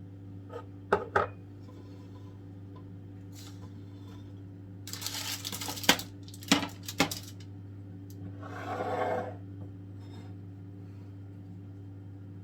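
Kitchen dishes and utensils being handled: a few sharp clinks and knocks against a bowl or dish, with two short noisy stretches of scraping or pouring in the middle.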